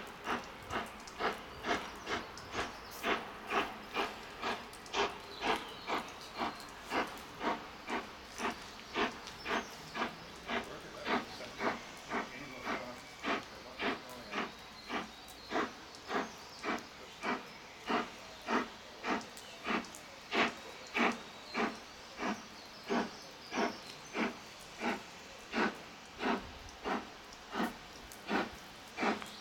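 LMS Black Five 4-6-0 steam locomotive 44871 working slowly, its exhaust beats heard as an even run of chuffs about one and a half a second before it comes into sight.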